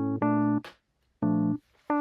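Lo-fi background music: electric piano chords played in short stabs, with a brief gap about halfway through.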